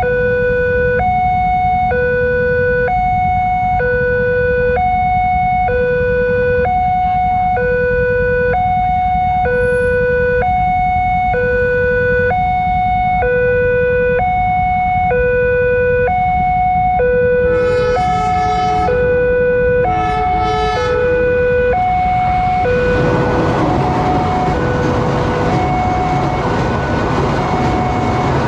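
Railway level-crossing alarm sounding a two-tone, ambulance-like hi-lo wail, switching between its two notes about once a second. A horn blasts twice after the middle. Then a passenger train rumbles through the crossing over the alarm.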